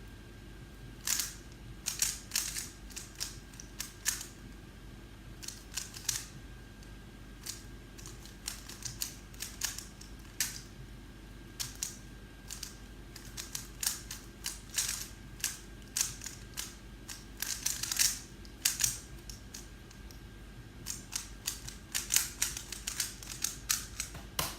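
3x3 Rubik's Cube being turned fast in a speed solve: irregular plastic clicks and clacks coming in quick flurries.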